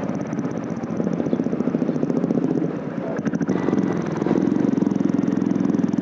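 Royal Enfield single-cylinder motorcycle engine, breathing through an aftermarket Dolphin silencer, running under way with a steady, rapid beat of exhaust pulses. It gets louder about four seconds in as the bike picks up.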